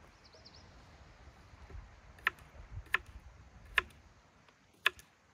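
A knife cutting potatoes and knocking down onto a wooden cutting board: four sharp knocks, roughly a second apart, in the second half, over a faint low rumble.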